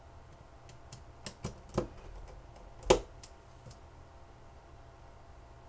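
Small sharp clicks and taps of a precision screwdriver and tiny screws against a cell phone's plastic frame during reassembly, a handful of them within about three seconds, one louder click near the end of the run.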